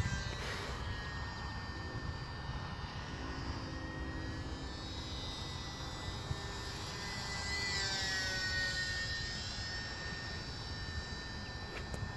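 Electric motor and propeller of a Champ S+ micro RC plane whining in flight: a steady high whine that gets a little louder and drops in pitch about eight seconds in, over a steady low rumble.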